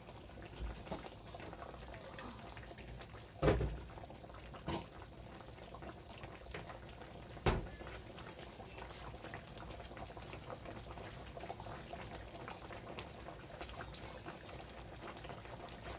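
Flour-and-onion gravy simmering in skillets on an electric stove: a soft, steady bubbling. It is broken by three louder knocks between about three and eight seconds in.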